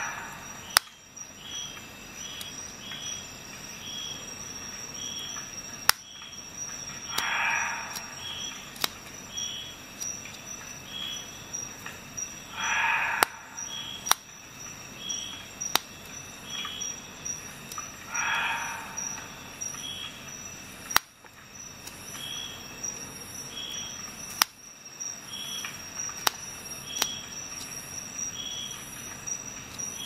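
Leatherman Wave+ multi-tool scissors cutting paracord: about four rasping cuts through the cord, five to six seconds apart, and scattered sharp clicks of the small blades. Behind it, a faint high chirp repeats steadily over a thin steady high tone.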